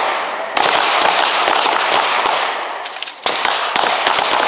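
Several handguns firing rapid, overlapping shots at once, a dense volley with a short lull near the start and another about three seconds in.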